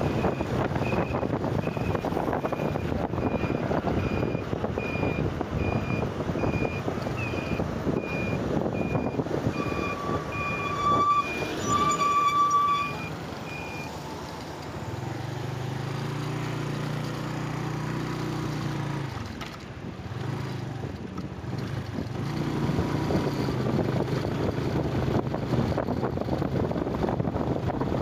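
Wind rushing over the microphone and a motorcycle engine running during a ride, with a steady electronic beeping, about three beeps every two seconds, that stops about fourteen seconds in. A horn sounds twice around eleven to twelve seconds. After that the wind drops and a steady low engine hum is heard for a few seconds, before the wind noise rises again near the end.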